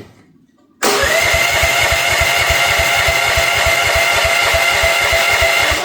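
Future FT15 mini excavator's gasoline engine cranking on its electric starter without catching. A steady starter whine sits over fast, even compression pulses, starting abruptly about a second in. The engine is failing to start in the cold, and the owner suspects it is low on gas.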